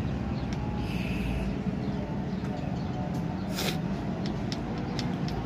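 Small metallic clicks and taps of a spanner and feeler gauge working a rocker-arm tappet adjusting screw on a Hino H07C six-cylinder diesel during a valve-clearance setting, several clicks coming close together near the end. Under them runs a steady low rumble.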